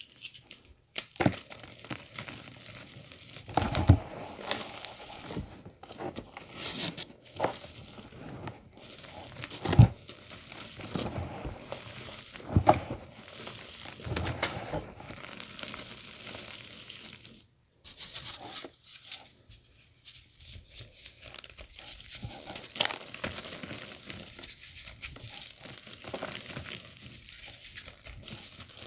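Reformed gym chalk being crushed and crumbled by hand over loose chalk powder: an irregular crunching and crackling, with a few louder thumps as chunks break or drop, about 4, 10 and 13 seconds in.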